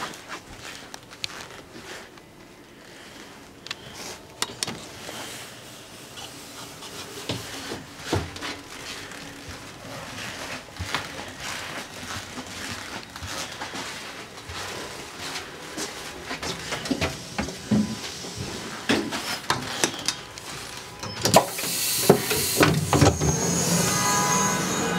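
Knocks and rattles inside a Mark 3 railway coach as the train runs, over a steady low rumble. The noise grows louder toward the end, where a loud hiss and a high ringing tone come in.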